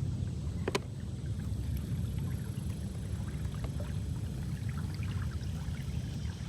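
Kayak under way on a river, pushed by a Minn Kota 30 lb thrust electric trolling motor on low speed: a steady low rumble of motor, water and air movement, with one sharp click about three-quarters of a second in.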